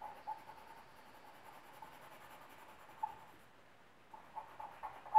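Charcoal pencil scratching on drawing paper in short strokes. It is faint at first, with a few isolated ticks, then turns into a run of quicker strokes about four seconds in.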